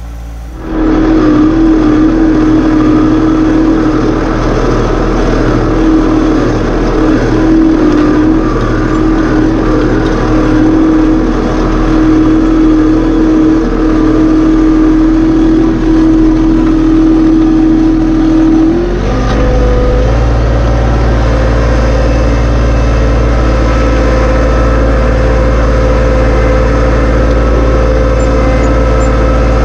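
John Deere 2025R compact tractor's three-cylinder diesel engine running loud. It comes up sharply within the first second and holds a slightly wavering pitch. About 19 seconds in, the engine speed rises and then holds steady at a higher pitch.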